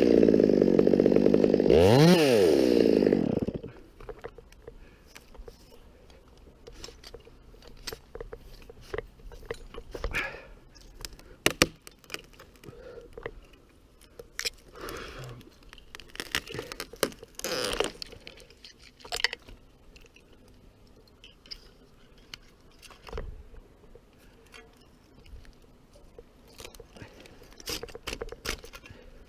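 Chainsaw revving up and down, then shutting off about three seconds in. After that come scattered cracks, crunches and knocks, irregular and much quieter.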